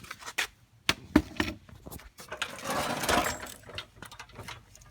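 Handling noise: scattered sharp clicks and knocks, with a louder rustling scrape about two and a half seconds in.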